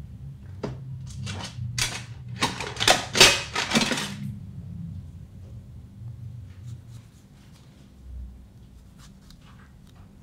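Kitchen handling noises: a quick run of clatters and scrapes, densest two to four seconds in, then a few faint clicks as a knife is worked into a tomato.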